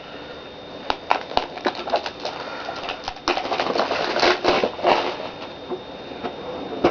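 Light clicks and crinkly rustling from a collectible tin and its card packs being handled and opened, busiest in the middle stretch.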